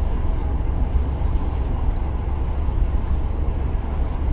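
Steady low rumble of a houseboat under way on open water, with wind buffeting the microphone on the open deck.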